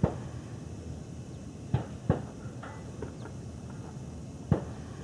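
Four sharp knocks and clicks from handling the spotting scope and camera while the scope is being focused: one at the start, two close together just under two seconds in, and one about four and a half seconds in, with a few faint ticks between.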